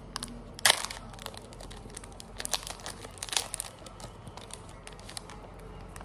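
Basketball card pack wrapper being torn open and crinkled by hand, a run of crackles with the loudest rip about a second in and more crinkling around the middle.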